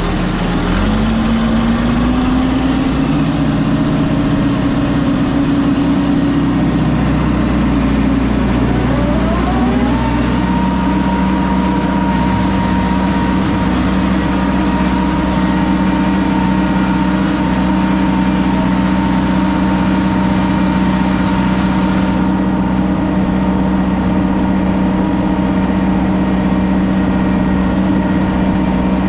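Tractor engine running under load with its PTO driving a manure spreader. The engine note rises just after the start and settles, and about nine seconds in a higher whine climbs in pitch and then holds steady as the spreader's drive comes up to speed.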